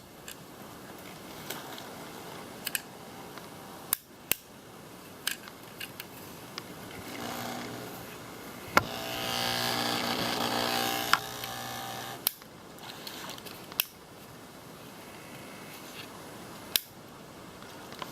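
Sharp clicks and knocks of small plastic toy trains being handled and coupled, with a small electric motor whirring for about five seconds in the middle.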